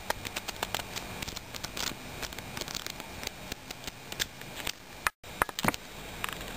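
Pages of a thick paperback textbook being flipped through by hand: a quick, uneven run of paper flicks and ticks. The sound cuts out briefly a little after five seconds in.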